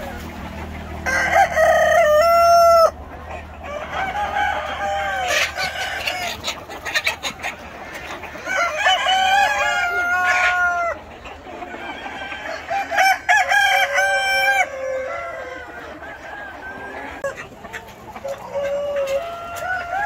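A flock of roosters crowing in turn, several long crows overlapping, with chickens clucking between them; the loudest crows come a couple of seconds in.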